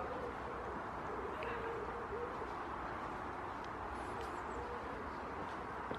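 Steady hum of road traffic from a nearby main road, with faint low cooing bird calls and a few brief high chirps about four seconds in.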